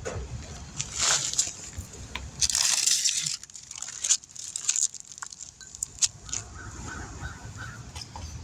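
A burst of compressed-air hiss from a shop air hose, lasting about a second and starting about two and a half seconds in, among scattered clicks and knocks from the air fittings and tools being handled while trying to air up a freshly mounted tire.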